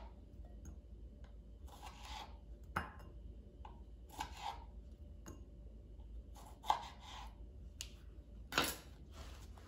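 Knife slicing cherry tomatoes in half on a plastic cutting board: faint, short cut-and-tap strokes on the board every second or two, with a few sharper clicks.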